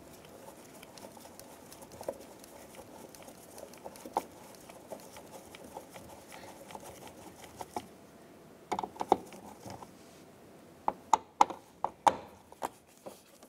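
Light clicks and taps of a hand screwdriver with a Torx bit working two screws loose in a plastic door-pull cup, with a cluster of sharper clicks about nine seconds in and several more near the end.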